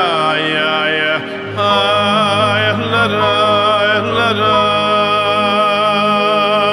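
A Chabad niggun: a male voice sings a slow, gliding melody over an instrumental arrangement with a held bass note. The music dips briefly a little after a second in.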